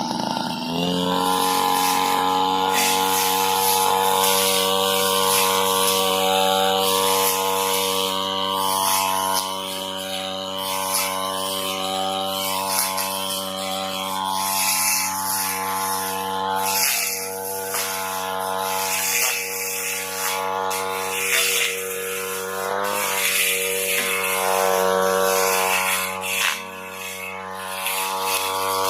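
Small brush cutter engine running at high throttle, its metal blade cutting through tall Pakistan (napier) grass with a rushing swish over the engine buzz. The engine revs up about half a second in and holds steady, dropping briefly in speed twice near the end.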